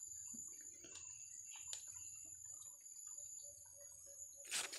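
Insects trilling steadily at a high pitch, with faint scattered clicks and a short rustle near the end.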